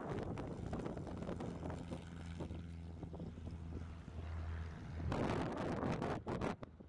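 Light aircraft's piston engine and propeller running with a steady low hum. Near the end, gusts of wind buffet the microphone.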